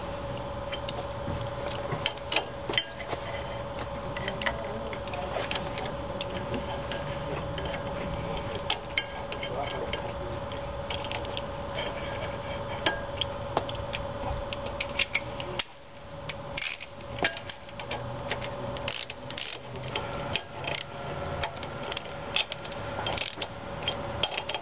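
Socket ratchet clicking in short runs as flywheel bolts are snugged down onto a Chevy small-block 350's crankshaft, ahead of torquing, with light metal clinks of the tool. A steady faint hum runs underneath.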